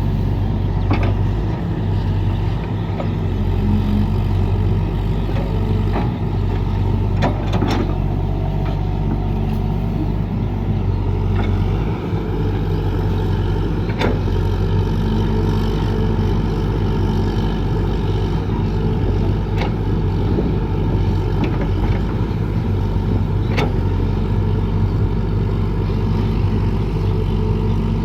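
Excavator's diesel engine running steadily, with a few sharp clanks at intervals.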